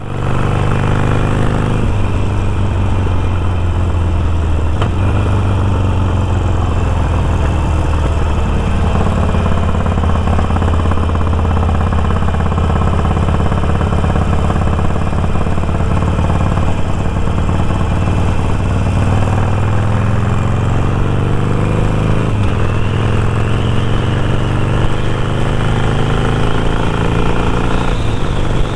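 Cruiser motorcycle engine running under way, heard from the rider's seat with wind rushing over the microphone. About two-thirds of the way through, the engine note climbs as the bike accelerates, drops at a gear change, then climbs again.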